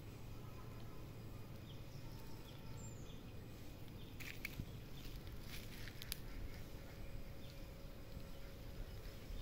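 Faint outdoor background with a steady low rumble, a few soft chirps, and a short cluster of light clicks and rustles about halfway through.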